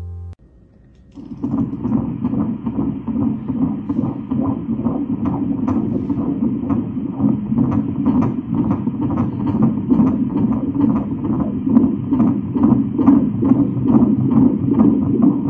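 Fetal heartbeat played through an ultrasound scanner's Doppler: a fast, even whooshing pulse of about two and a half beats a second, starting about a second in.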